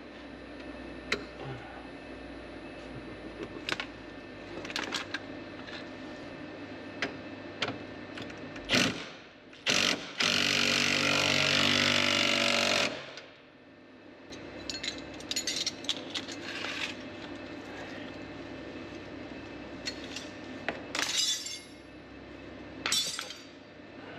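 Tools clinking and knocking on metal while a drive shaft is bolted into a pickup's underside, with a few short bursts and one power tool running for about three seconds near the middle.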